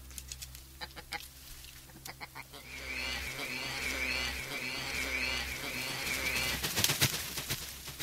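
Farmyard ambience: chickens and birds calling, with one call repeated rapidly, about two a second, for some four seconds from about three seconds in. A few loud sharp knocks come near the end, over a low steady hum.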